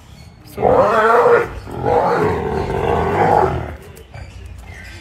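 Lions growling at each other in two loud bursts: a short one about half a second in, then a longer one lasting nearly two seconds.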